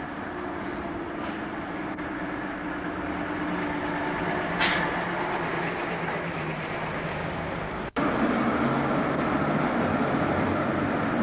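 Steady street traffic noise with trolleybuses and trams passing, recorded on a camcorder's built-in microphone. There is a sharp click about halfway through, and just before eight seconds the sound drops out for an instant at a cut and comes back louder.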